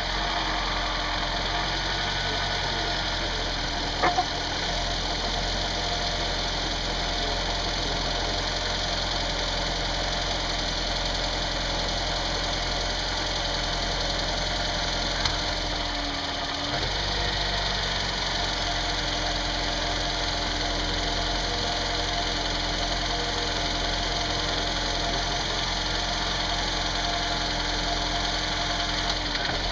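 Second-generation Toyota Prius petrol engine running steadily at idle, with a sharp click or knock about four seconds in: the strange noise the owner is recording. The engine tone briefly dips and shifts around sixteen seconds in.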